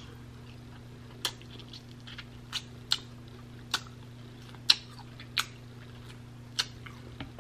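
Close-up mouth sounds of someone eating honey-glazed garlic lamb chops, gnawing the meat off the bone: a string of short, wet chewing and lip smacks, roughly one a second. A faint steady low hum runs underneath.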